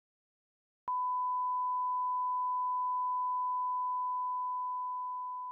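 A steady 1 kHz test tone, a single pure beep, starts abruptly about a second in after dead silence. It is the broadcast line-up tone that goes with colour bars, and it begins to fade slightly near the end.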